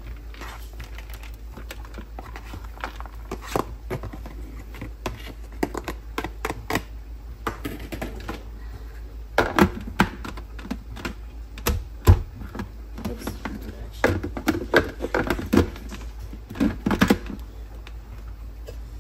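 A spoon scraping softened puppy kibble off a metal tray into a plastic food processor bowl, with short irregular clicks and clatters. Later the processor's plastic lid is fitted and pressed on, with a few sharper clacks.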